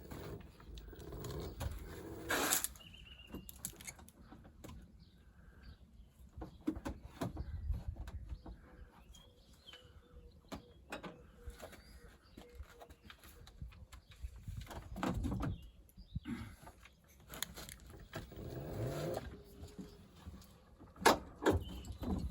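Scattered knocks, clunks and rattles as a car battery is handled and lowered into its well.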